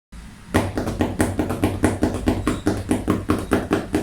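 An object struck by hand in a rapid, even series of taps, about five a second, starting about half a second in.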